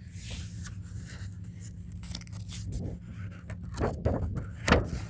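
Pages of a small children's picture book being turned and handled: a series of papery rustles and scrapes, the loudest near the end, over a steady low hum.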